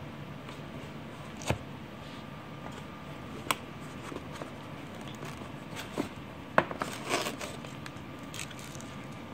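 Handling noise of small hard-plastic parts and a cable being lifted out of a foam-lined hard case: a few separate sharp clicks and knocks, the loudest about six and a half seconds in, followed by a short scraping rustle.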